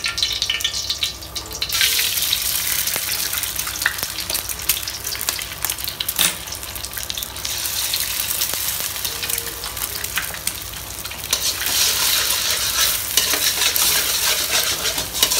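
Eggs sizzling as they fry in hot oil in a wok, the sizzle jumping up about two seconds in as they hit the oil. From about eleven seconds in, a metal spatula scrapes and scrambles them against the pan, the sizzle louder and mixed with scraping clicks.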